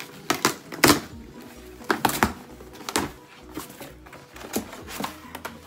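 Cardboard and brown paper packaging being handled and opened: a series of sharp rustles, crinkles and knocks, the loudest about a second in, over faint background music.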